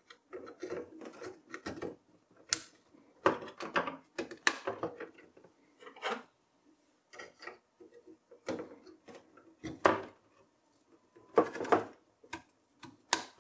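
DDR3 memory modules being handled and pressed into a motherboard's DIMM slots: irregular plastic clicks and knocks in several clusters as the modules seat and the slot retention clips snap shut.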